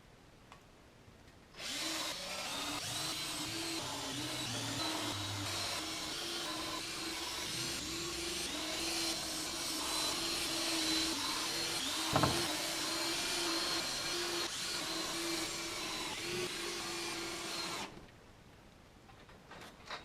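A motor-driven power tool runs steadily with a constant hum for about sixteen seconds, starting and stopping abruptly, with one sharp knock about twelve seconds in.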